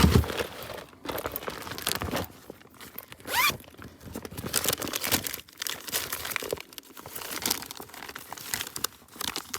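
Crinkling and rustling of plastic soft-bait packs as they are rummaged through in a tackle storage compartment, with small clicks and knocks throughout.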